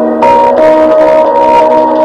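Instrumental music with guitar played back through a Soundcore Boom 2 Bluetooth speaker as a sound check, held notes changing a few times.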